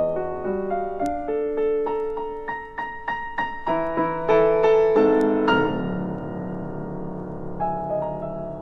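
Solo piano playing a contemporary classical piece: a run of quick, rising notes that grows louder, peaks about five seconds in and gives way to a sustained, ringing chord, with sparse notes returning near the end.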